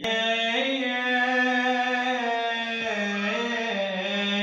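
Music: a sustained melodic line that moves through a few held notes between sung lines of an Arabic lament song.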